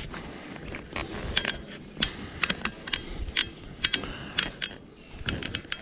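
Irregular clicks and light clatter of small hard objects being handled.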